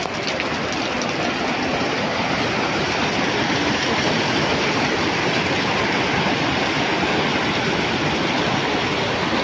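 Fast-flowing muddy flash-flood water rushing steadily.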